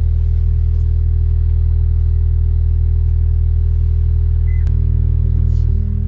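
John Deere skid steer's diesel engine running steadily at a loud drone; about four and a half seconds in there is a click and its note changes.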